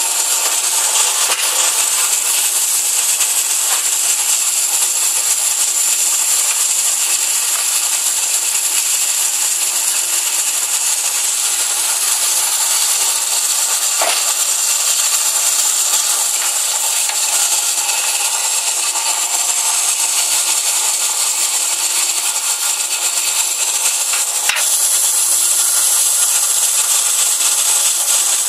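Semi-automatic capsule filling machine running steadily, a continuous high rattling, rubbing noise, with a couple of light knocks as the capsule rings and tools are handled.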